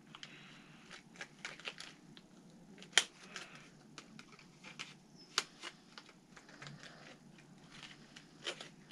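Scattered light clicks and taps of a jointed hard-bodied fishing lure and its hooks being handled, with sharper clicks about three seconds in, a little after five seconds and near the end.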